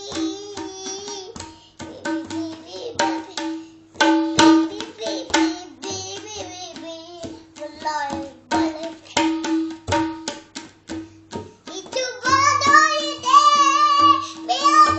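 Tabla played by hand: irregular strokes on the dayan and bayan, the dayan ringing with a steady pitch after many strokes. A young child's voice sings along, louder and more continuous from about three-quarters of the way in.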